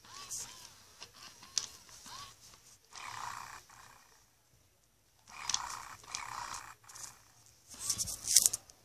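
FurReal Friends robotic toy cat giving two drawn-out electronic cat calls from its speaker, about three seconds in and again about five and a half seconds in. Brief rustling of its fur against the microphone near the end.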